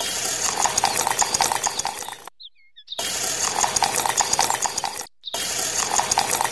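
Wet cement mix pouring and scraping from a small tin can into a miniature column form: a rapid crackly clicking and spattering. It comes in three stretches of about two seconds each, cut off abruptly between them.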